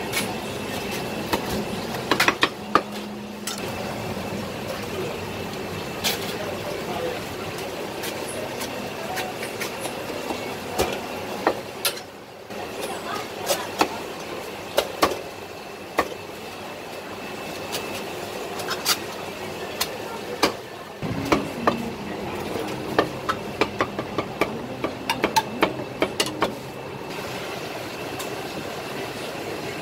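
Meat cleaver chopping roast duck on a thick wooden chopping block: sharp knocks at irregular intervals, sometimes several in quick succession, over a steady background din.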